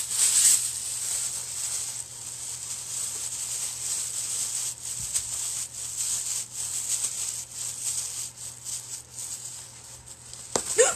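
Thin plastic shopping bag crinkling and rustling as it is pulled out and crumpled in the hands, then pushed in as stuffing, with many small crackles.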